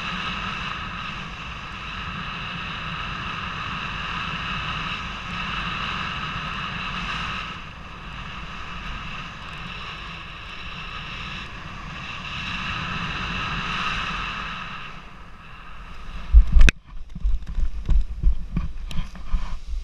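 Paraglider in flight: wind rushing over the pilot's camera with a steady whistle, swelling and easing with the glide. About 16 seconds in the wind noise drops away at touchdown with one sharp, loud knock, followed by irregular thumps and bumps as the pilot lands on the grass.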